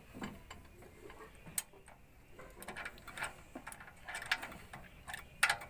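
Scattered light metallic clicks and taps of hand tools at work on an engine, at irregular intervals, with no engine running.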